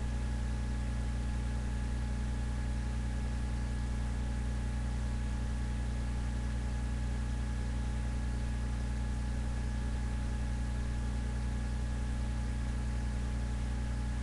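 A steady low hum with two faint high tones and an even hiss, unchanging throughout: equipment or room noise, with no beat or voice.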